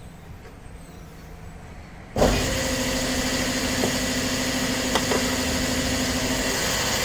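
Petrol pump nozzle dispensing fuel into a car's tank: a steady rushing hiss with a low pump hum under it, starting suddenly about two seconds in.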